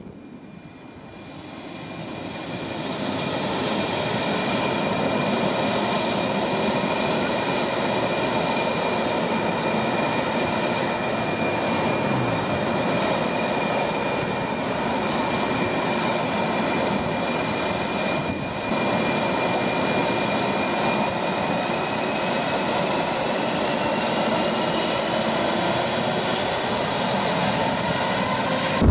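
Boeing 737 MAX 8's CFM LEAP-1B turbofan engines running at taxi power close by: a steady jet whine over a broad rush of engine noise. It swells over the first few seconds, then holds, with the whine rising slightly in pitch near the end.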